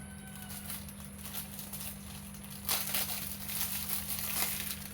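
Plastic packaging crinkling and rustling as it is handled, in irregular bursts that are loudest about three seconds in.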